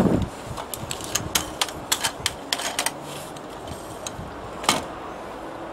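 Irregular sharp clicks and taps of the cut brush-holder fittings being bent and clipped into the clamp of a Harris telescopic window-cleaning pole, with one louder click about three-quarters through.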